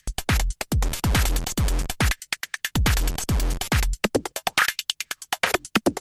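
Techno music from a drum machine: a kick drum about twice a second under dense, rapid hi-hats. The kick drops out briefly around the middle, then again for a choppy, stuttering break near the end.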